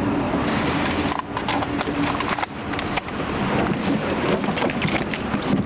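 Scuffle in a car's back seat: clothing rustling and a rapid, irregular run of knocks and clicks against the interior as an officer grapples with a suspect.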